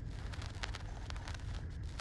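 Newborn puppies suckling at their mother's teats: quick, irregular wet clicks and smacks, several a second, over a low rumble of wind on the microphone.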